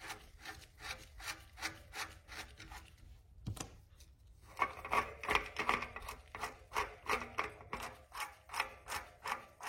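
Locknut and cone being unscrewed from a rear bicycle hub's threaded axle, metal rubbing in a steady run of short strokes, about three a second. The strokes pause about three seconds in, then resume louder.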